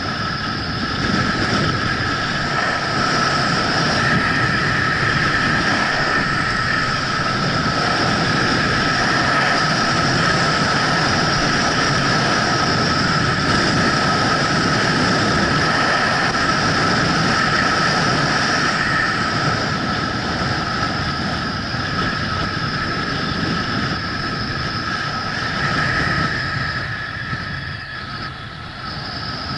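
Skis running fast on firm, hard-packed groomed snow, their edges scraping steadily, with wind rushing over the microphone.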